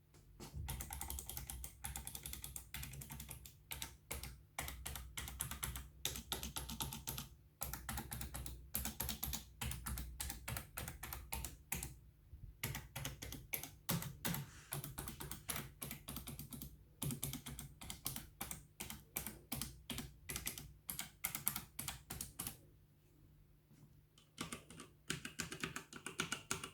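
Typing on a Redragon mechanical keyboard: fast runs of keystrokes with two short pauses, one about twelve seconds in and a longer one a couple of seconds before the end. Very quiet for a mechanical keyboard.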